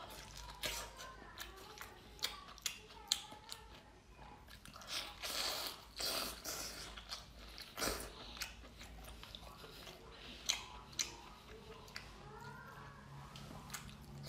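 Close-miked sounds of eating sea snails: chewing and sucking the meat from the shells, with a longer slurp a few seconds in. Sharp clicks of shells and fingernails tapping against shell are scattered throughout.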